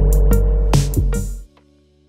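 Electronic intro music with drum-machine hits and heavy bass, cutting off suddenly about one and a half seconds in, leaving a faint held tone.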